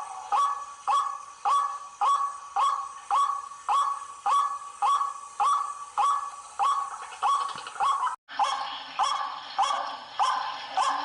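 White-breasted waterhen (ruak-ruak) calls: a harsh call repeated steadily about twice a second. There is a brief dropout about eight seconds in, and then the calls go on over a faint low hum.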